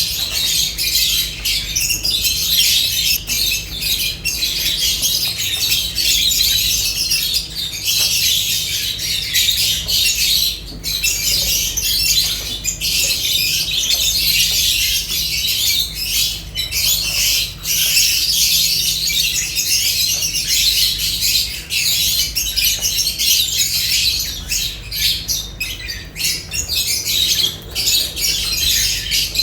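Several lovebirds chattering and squawking continuously in a dense stream of shrill, high-pitched calls, over a faint steady low hum.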